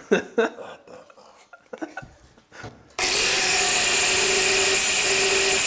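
A handheld power tool starts about three seconds in and runs steadily with a constant whine, after a few clicks and knocks of handling.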